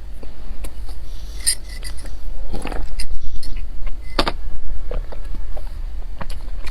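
Close-miked eating of dense nut-studded lieba bread: scattered crisp clicks and crackles of biting and chewing, the sharpest about four seconds in, over a steady low hum.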